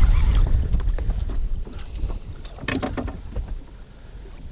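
Wind buffeting the microphone over water lapping against a boat, loudest at the start and easing off, with a brief louder burst of noise a little under three seconds in.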